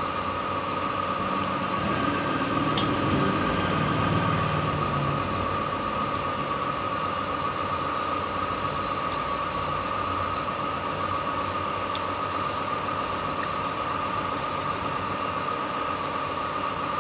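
A steady mechanical hum with a constant whine, like a motor running, with a few faint clicks of fingers on a steel plate.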